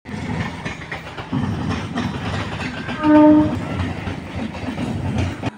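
A train running past, rumbling and clattering, with one short horn blast about three seconds in.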